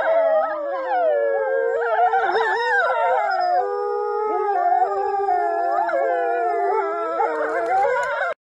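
Two wolves howling together, their long calls overlapping and gliding up and down in pitch; the sound cuts off abruptly near the end.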